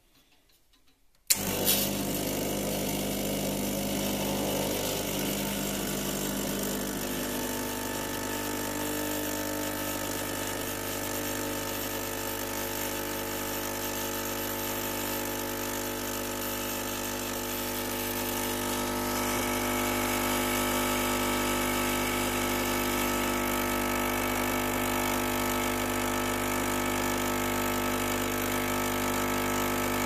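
Rancilio espresso machine's pump running steadily as it pulls an espresso shot, switching on suddenly about a second in; the steady hum grows a little louder and fuller a bit past the middle.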